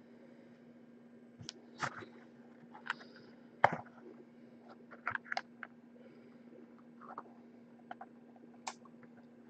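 Scattered faint clicks and taps of hands handling a cardboard trading-card hobby box, the sharpest a little over three and a half seconds in, over a steady low hum.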